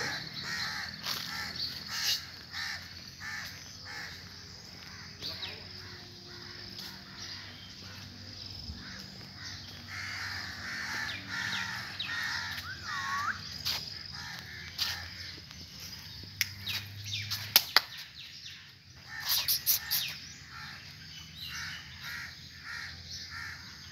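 Crows cawing repeatedly, with other birds calling in the background and a few sharp clicks in the latter half.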